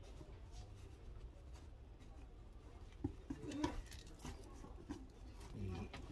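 Rustling and small knocks of cut flower stems being handled and fitted against a dried vine wreath ring, busiest about three to four seconds in, over a low steady hum.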